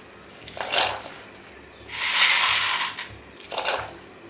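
Handfuls of dry macaroni being dropped into a pot of boiling water: a rattling patter of small hard pieces lasting about a second each time, repeated about two seconds apart, with shorter rustles in between.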